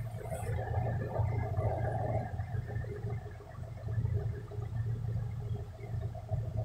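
Truck diesel engine idling, heard from inside the cab, with a steady low drone and some rattle, running so that the air compressor can build brake air pressure after a repair to the air system.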